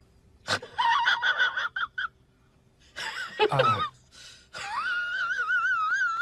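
Husky puppy whining and yelping in short high calls, then one long wavering howl near the end.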